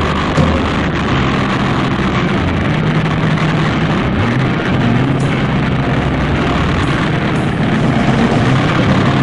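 Supermotard motorcycle engine running at speed, its revs rising and falling through the bends, under heavy wind rush on the microphone.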